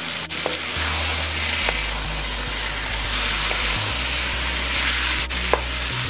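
Chicken pieces in curry paste sizzling and frying in a nonstick wok while a wooden spatula stirs and scrapes them, with a couple of sharp knocks. The meat is cooking down until its water cooks out.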